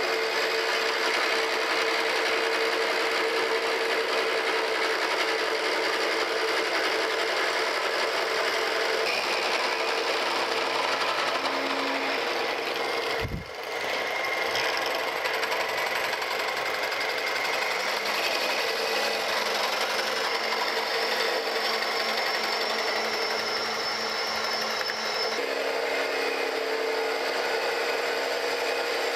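Vertical milling machine running, its milling cutter facing the top of a rough casting in a cut of about 25 thousandths: a steady grinding machining noise with a faint steady hum. There is a brief break in the sound about halfway through.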